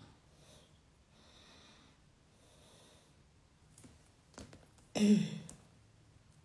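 A person breathing softly close to the microphone, with a few light clicks, then a short, loud vocal sound about five seconds in.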